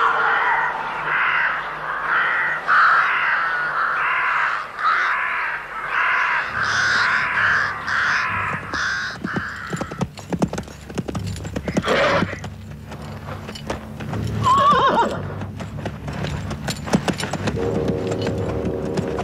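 A horse neighing, then hooves knocking on sand as it is ridden down a dune. A run of repeated calls fills the first half, and music comes in near the end.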